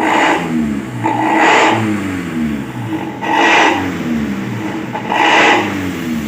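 Daihatsu Gran Max exhaust fitted with an aftermarket SUOS muffler, the engine revved in four throttle blips and falling back toward idle after each. It gives the growling ("ngorok") exhaust note.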